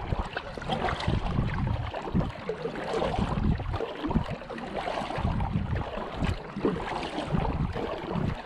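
Kayak paddle strokes: the paddle blades dipping and pulling through calm lake water with light splashing and dripping, surging every second or so, under a low wind rumble on the microphone.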